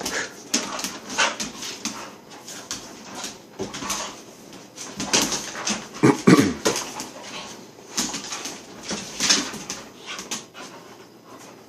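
Two dogs play-fighting: growls and whines, loudest a little past halfway, with scattered clicks of claws on the tile floor.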